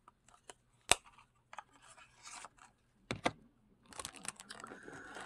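Handling of small plastic makeup palettes and packaging: a sharp click about a second in, two more clicks around three seconds in, with light rustling and crinkling between.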